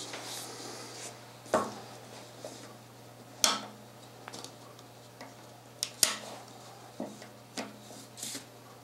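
Light metallic clicks and clinks from handling the opened Model 1892 revolver and its exposed lockwork: about half a dozen sharp clicks at irregular intervals, with softer rattles between them.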